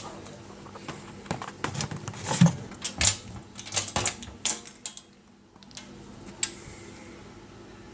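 A quick run of small clicks and clattering knocks, with one louder knock among them, then a single click a little later: small metal parts or tools being handled.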